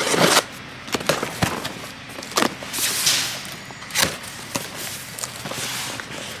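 A box cutter slices through the packing tape on a cardboard box. Then the flaps are pulled open, with cardboard scraping and rustling and a few sharp knocks.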